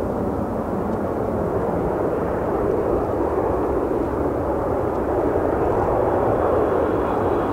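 Boeing 787-8 Dreamliner's jet engines running as the airliner rolls along the ground, a steady rushing noise that grows gradually louder.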